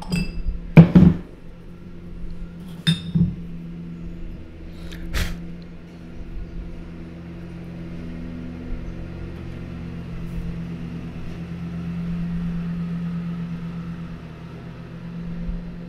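A handful of sharp clinks and knocks from a small ceramic ink vessel being handled and set down, the loudest about a second in and the last about five seconds in, followed by a steady low hum.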